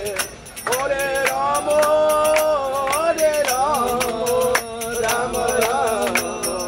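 Kirtan: devotional mantra singing with bending and held melodic lines, resuming after a brief break about half a second in, over a steady beat of sharp percussive strikes, roughly two to three a second.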